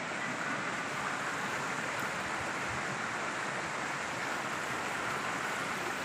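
Steady sound of a rocky stream's water running over stones.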